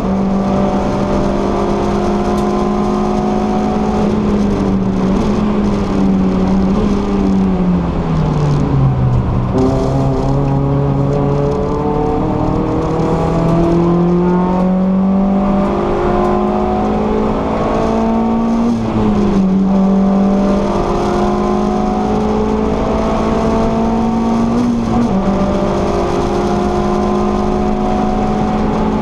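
VW Lupo GTI Cup car's four-cylinder engine running hard, heard from inside the caged cabin at racing speed. Its pitch falls away for several seconds, then climbs again, stepping down about 19 and 25 seconds in as it is shifted up.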